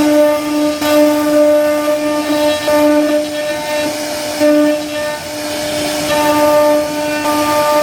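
CNC wood router's spindle running with a steady high whine while its bit cuts into a wooden door panel, the cutting noise rising and falling as the tool moves.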